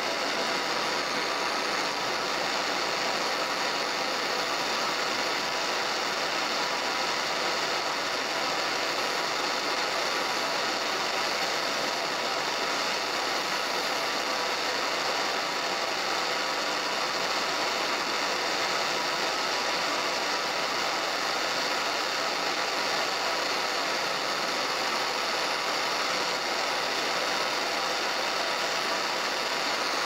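Small propane torch burning with a steady hiss as it heats a brass fitting on a stainless steel tube for silver soldering.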